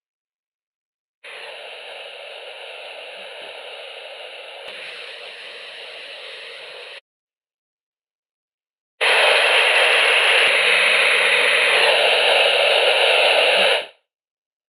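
Heterodyned output of an industrial ultrasound detector: a steady hiss starting about a second in and stopping abruptly after about six seconds, then after a two-second silence a second, much louder steady hiss for about five seconds that also cuts off abruptly.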